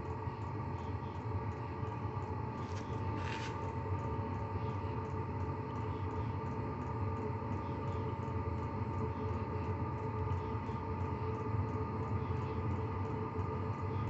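5 kW diesel air heater running and burning steadily: a continuous rush of combustion and blower with a steady motor whine, over the even ticking of its fuel dosing pump. Two short noises break in about three seconds in.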